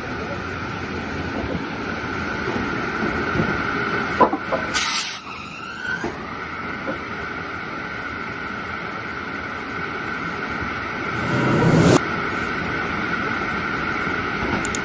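Cart-mounted circular log saw running with a steady whine while logs are cross-cut; it grows louder and heavier a few seconds before the end, then drops back suddenly.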